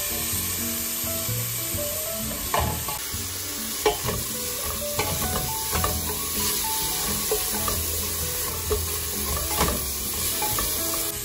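Minced garlic and onion sizzling in olive oil in the bottom of a metal pressure cooker pot, stirred with a silicone spatula. The spatula taps and scrapes against the pot a few times.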